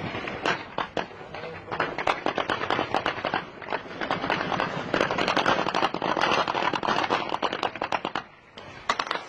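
Heavy gunfire in an armed clash: many shots overlapping in rapid bursts, with a brief lull about eight seconds in.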